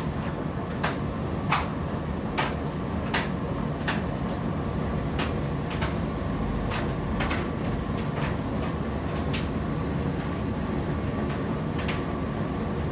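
Indesit IDC8T3B condenser tumble dryer running, with a steady low rumble from the turning drum and irregular light knocks, one or two a second.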